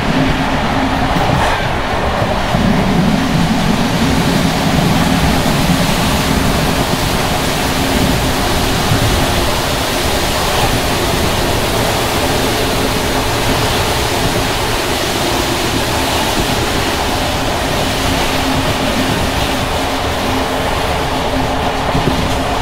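Loud, steady running noise of an old passenger coach at speed, its worn Görlitz V bogies rumbling and rattling over uneven jointed track, with wind rushing in at the window. The uploader puts the heavy rattle down to the brake gear bouncing on bogies long overdue for overhaul.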